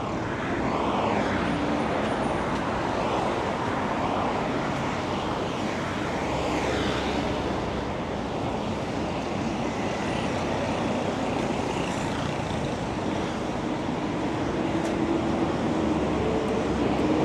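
Steady city street noise of road traffic, growing a little louder near the end.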